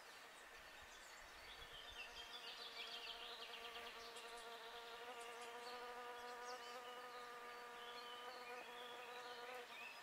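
A flying insect buzzing at a steady pitch, growing louder and then stopping just before the end. A few faint bird chirps come in the background.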